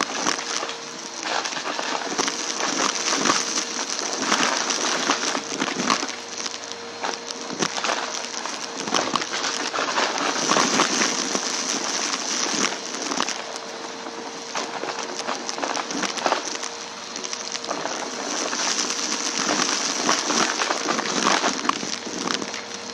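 Vacuum cleaner running with a steady motor hum, its brushroll picking up crunchy debris from a rug: a dense stream of irregular crackles and clicks over a constant hiss.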